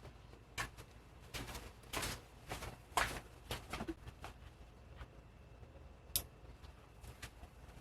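Scattered light clicks and taps, about a dozen at irregular intervals, as objects are handled and set down, with a sharper click about six seconds in.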